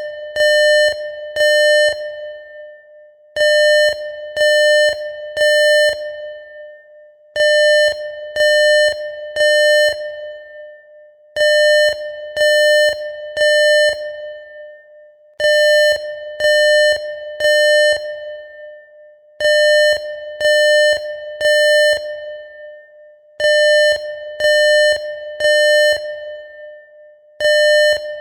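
Electronic alarm sound effect: groups of three quick identical beeps on one mid-pitched tone, each group ringing out afterwards, repeating steadily about every four seconds.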